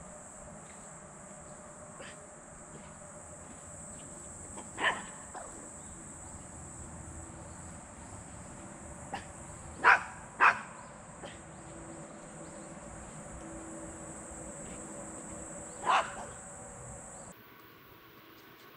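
A small dog barking in sharp single yelps: once about five seconds in, twice in quick succession about ten seconds in, and once more near the end. Behind it runs a steady high chirring of insects.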